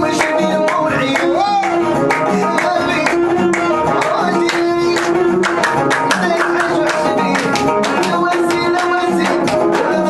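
Moroccan chaabi music played live: a violin held upright on the knee and bowed with a wavering, sliding melody, over keyboard accompaniment with a fast, even beat.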